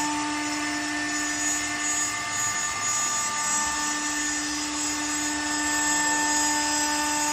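CNC router spindle motor running at high speed: a steady, even whine made of several held tones, with a low running hum beneath.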